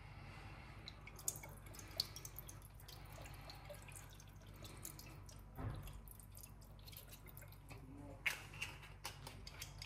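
Sherry vinegar being poured and dripping, faint, with a few small clicks and a soft knock a little past halfway.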